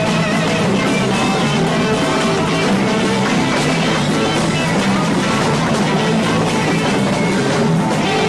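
Rock band jamming in a psychedelic rock style, with guitar and drum kit playing continuously at a steady, loud level.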